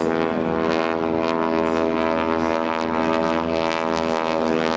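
North American SNJ-5 Texan in flight, its nine-cylinder Pratt & Whitney R-1340 Wasp radial engine and propeller running steadily.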